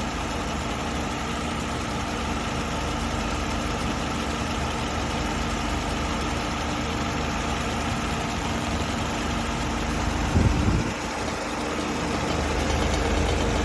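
Car engine idling steadily with the air conditioning switched on during a refrigerant recharge. A short louder sound breaks in briefly about ten seconds in.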